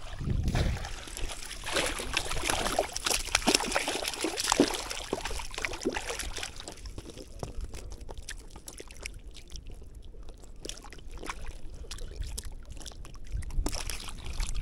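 Water splashing and sloshing beside a small boat, heaviest for the first several seconds, then dying down to a light trickle and dripping.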